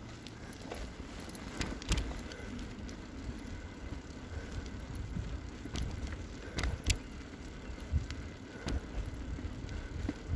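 Bicycle being ridden along a tarmac road: the tyres roll with a low rumble while the bike rattles, with a few sharp clicks and knocks from the frame and fittings.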